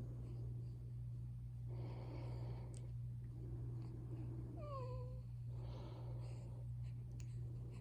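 Newborn baby breathing, with a short squeak falling in pitch about five seconds in, over a steady low hum.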